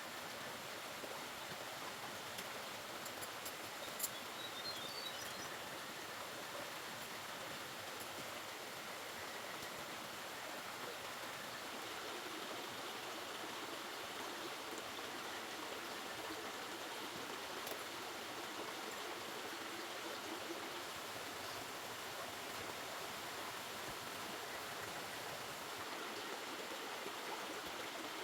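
River water flowing steadily, with a single sharp click about four seconds in.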